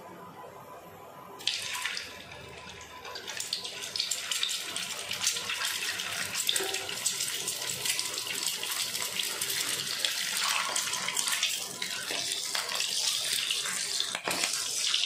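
Hot oil sizzling and crackling in a nonstick frying pan as whole boiled eggs, scored with a knife, fry in it. The sizzle starts suddenly about a second and a half in as the eggs go in, and grows busier and denser after a few seconds.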